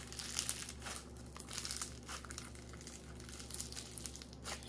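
Blue floam slime squeezed and squished between the hands, its foam beads crackling and popping in short irregular spells over and over.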